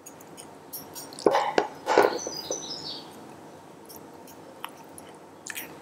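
Serving spoon and fork scraping an aluminium frying pan and lifting soft, oily pepper strips onto a plate. Two short clatters come about one and two seconds in, followed by a few soft clicks.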